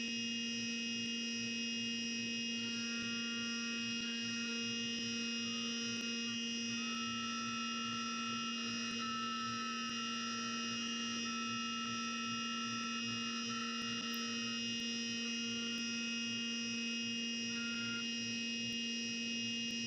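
CNC milling machine running with its end mill cutting brass, ramping into the belt slot of a buckle: a steady machine hum with a higher cutting tone that comes in about three seconds in, wavers, and fades out about fifteen seconds in.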